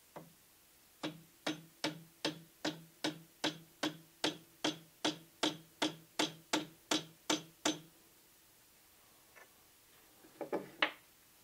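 Plastic-faced mallet tapping a steel rolling pin punch, about eighteen light, even taps at roughly two and a half a second, driving the small mainspring pin out of a SIG P230 hammer strut and magazine catch assembly held compressed in an arbor press. A few clicks near the end as the tools are handled.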